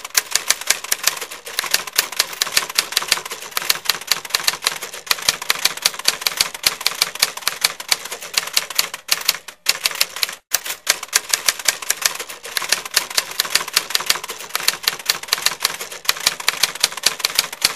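Rapid typing: a dense, uneven run of sharp key clicks, several a second, with two short breaks about nine and ten and a half seconds in.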